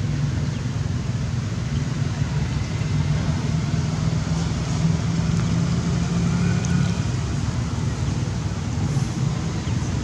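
A steady low rumble.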